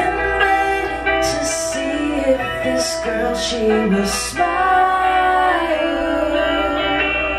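A live song: guitar accompaniment under a woman's singing, with a line that moves in the first half and longer held notes after about four and a half seconds.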